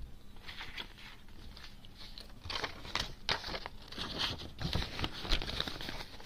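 Paper banknotes rustling and crinkling as they are handled and folded by hand, with irregular crisp crackles that come thicker from about halfway through.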